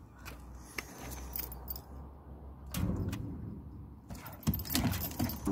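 Metal clinks from a dog's collar and lead fittings as a Patterdale terrier cross sniffs hard into a gap under wooden decking, with louder snuffling bursts about three seconds in and again near the end.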